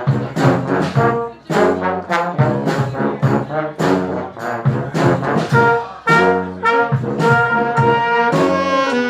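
Brass band playing, led by trombones and trumpets: short, punchy notes on a steady beat. About six seconds in, the horns move to longer held notes.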